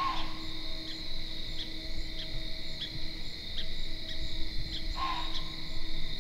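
Insects chirping in a steady chorus: a high continuous trill with a short pulse repeating about every two-thirds of a second. A brief call sounds twice, at the start and about five seconds in.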